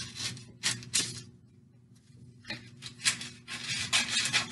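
Scissors cutting parchment baking paper, with the paper crinkling as it is handled: two short snips, a pause, then a quick run of snips and rustles.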